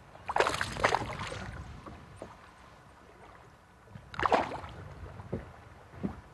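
A hooked bass splashing at the water's surface beside a boat, in two short bursts: one about half a second in lasting about a second, and a shorter one about four seconds in as it is lifted from the water. A low steady rumble sits underneath.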